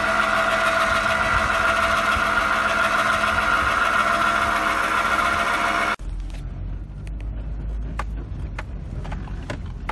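Electric trailer tongue jack's motor running with a steady whine as it drives the jack post. About six seconds in the sound cuts off abruptly to the low rumble of driving inside the tow vehicle's cab, with scattered light clicks and rattles.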